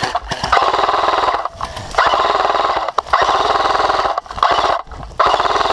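Airsoft rifle firing long full-auto bursts: a fast, even rattle of shots, about four bursts with short pauses between them.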